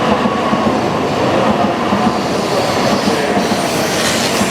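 Tokaido Shinkansen train running along the station platform: a loud, steady rush of running noise with faint whining tones over it, the hiss growing near the end.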